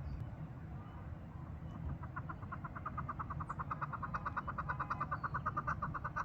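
Chukar partridge calling: a rapid, even run of clucking notes, about nine a second, that starts about two seconds in and grows louder, over a steady low rumble.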